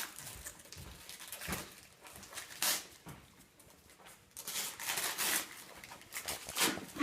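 Wrapping paper rustling and tearing in short, irregular bursts as a present is unwrapped.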